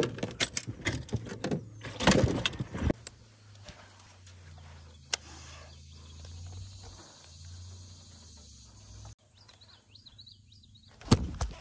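A quick run of sharp knocks and clicks from gear being handled in the boat, followed by a steady low motor hum with a slightly wavering pitch. Faint high chirps come in near the end, and more knocks close it.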